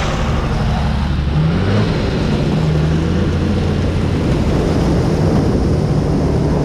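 John Deere 3350 tractor's diesel engine running steadily under load, its pitch rising about a second and a half in and then holding, while the Zmaj 222 corn picker's hopper tips and unloads ears of corn.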